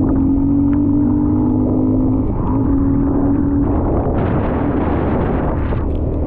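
Dirt bike engine running at a steady speed under way, with a brief dip in pitch about two seconds in. From about four seconds in, a rushing noise rises over the engine.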